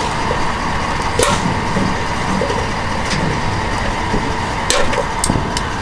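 Steady rushing background noise with several sharp plastic clicks: plastic plugs being pried out of a truck frame, one about a second in and a quick run of them near the end.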